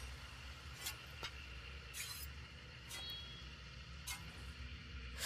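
Knife being handled: faint, scattered clicks and short scrapes, with a brief metallic ring about three seconds in, over a low steady hum.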